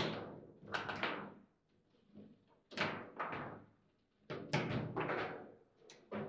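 Foosball game in play: a run of sharp knocks and clacks as the ball is struck by the rod figures and the rods are slammed, about eight hits at uneven intervals, each with a short ringing tail.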